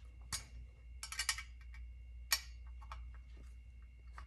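Small sharp metallic clicks and ticks of a hex key (L key) turning a screw into a plastic footrest bracket. There is one click about a third of a second in, a quick cluster about a second in, another just past two seconds, and lighter ticks between them.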